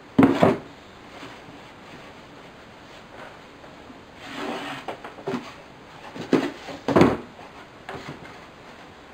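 Empty cardboard photocopy-paper box and its lid being handled on a table: a loud thump just after the start as a box is set down, a short scrape of cardboard sliding about four seconds in, then a few sharp knocks between about five and eight seconds in.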